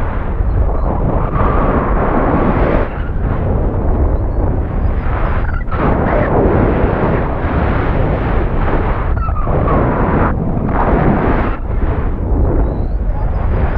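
Loud rushing wind buffeting the payload camera's microphone as a high-altitude balloon payload falls under its parachute after burst, surging and easing every second or two.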